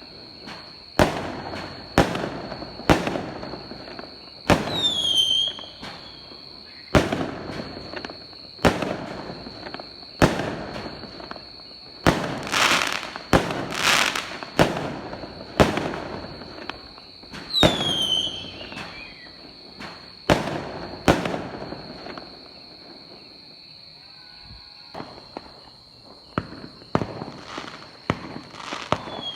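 Fireworks bursting: sharp bangs every one to two seconds, some followed by a falling whistle, thickest through the middle. Near the end the bangs give way for a few seconds to lighter crackles. A steady high tone runs underneath.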